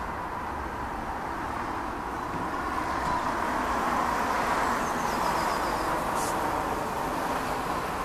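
Steady, distant jet roar of an airliner at cruise altitude, swelling a little around the middle and easing off again.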